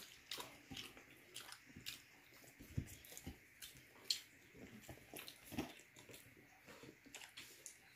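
Close-up eating sounds: a person chewing and smacking, with irregular soft mouth clicks as noodles are eaten by hand.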